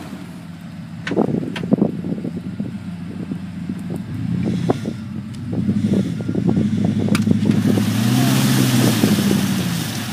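Ford Bronco's engine revving up and down under load as it pulls a stuck truck out of mud on a tow strap, with a few sharp knocks early on and a rushing noise near the end.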